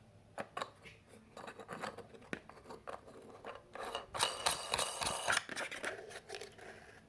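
Plastic lamp parts clicking and scraping as a shade is fitted onto the lamp's bulb holder, with a denser stretch of scraping and rustling a little past the middle.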